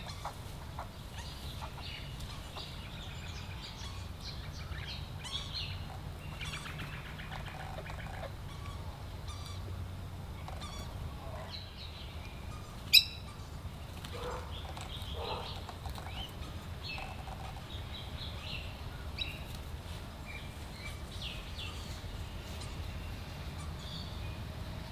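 Birds chirping and calling on and off with short, high notes over a steady low hum, with one sharp click about halfway through.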